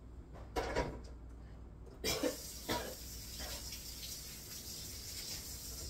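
Kitchen tap turned on about two seconds in and left running in a steady hiss, with a few short, loud sounds over it, the loudest near the start of the water.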